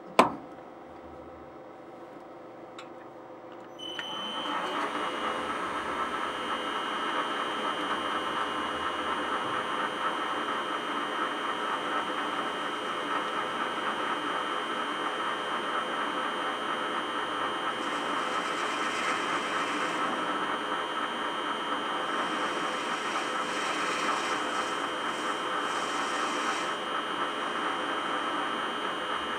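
A sharp click right at the start, then a metal lathe starting up about four seconds in and running steadily with a constant high whine, spinning a small brass spacer in its three-jaw chuck against the cutting tool.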